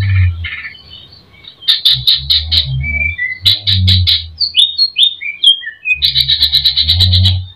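Cucak ijo (green leafbird) singing a varied song full of mimicked phrases. It gives runs of sharp repeated chirps, a few short downward-slurred whistles in the middle and a fast trill near the end. A low rumble sits under the louder passages.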